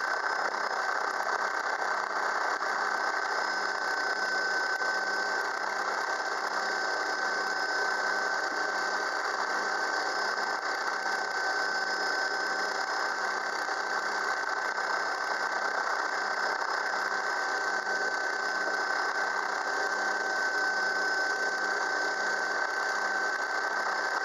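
Helicopter running steadily, heard from on board: a constant high whine over an even engine and rotor drone.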